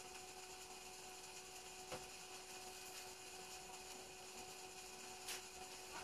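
Faint room tone: a steady low hum and hiss, with two faint small clicks, about two seconds in and again near the end.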